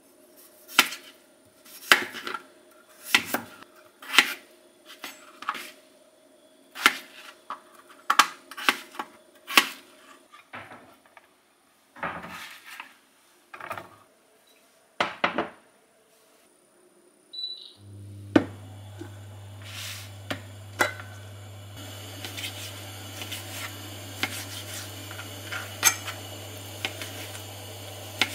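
Kitchen utensils being handled: a pot and a silicone steamer insert set down and fitted with sharp knocks and clatters. A steady low hum sets in about two-thirds of the way through, and near the end a knife taps through raw chicken breast onto a plastic cutting board.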